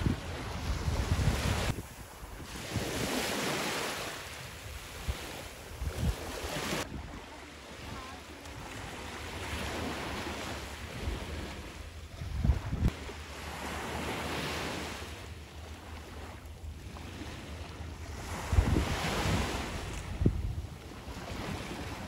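Sea waves washing onto the shore, the surf swelling and fading every few seconds, with wind gusting on the microphone in low thumps.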